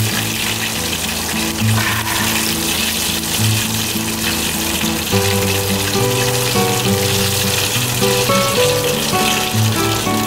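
Chicken drumsticks sizzling in hot oil in a frying pan, a steady hiss throughout. Background music plays over it, a melody of held notes.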